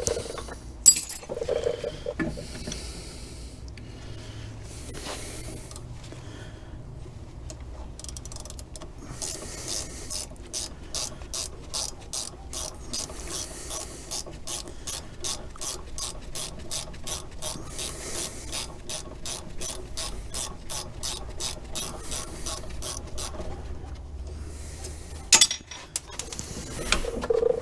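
Ratchet wrench clicking steadily, about three clicks a second, as it is swung back and forth on a bolt at the brake hub, with a sharp metal knock about a second in and another near the end.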